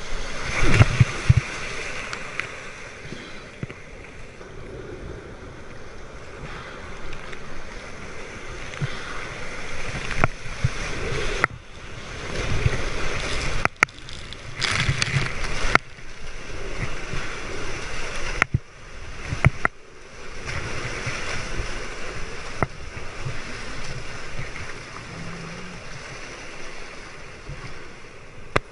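Breaking surf and whitewater foam rushing and splashing close around a surf kayak, rising in several louder surges, with a few sharp knocks.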